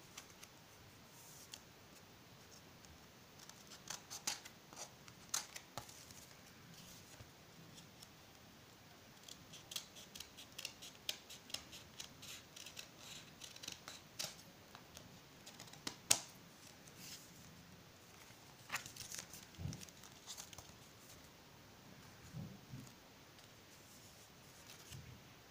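Scissors snipping through paper to trim off the excess, in irregular runs of quick snips with pauses between. The loudest single snip comes about two-thirds of the way through.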